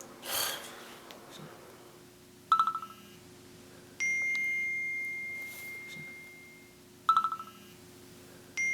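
Electronic chime sounds over a low steady hum: a short rapid fluttering blip followed by a long, clear ringing tone that slowly fades, heard twice.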